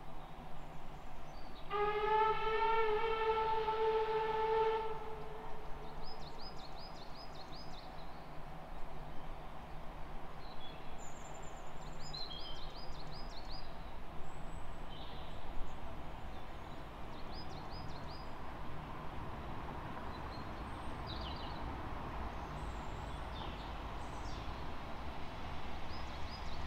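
Locomotive No. 2890 Douglas whistling once in the distance: one long single-pitched blast of about three seconds, starting about two seconds in. Small birds chirp throughout. In the second half a low rumble of the approaching train slowly grows.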